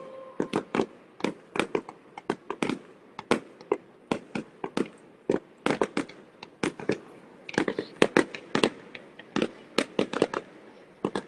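Fireworks going off: an irregular, rapid string of sharp bangs and cracks, several a second.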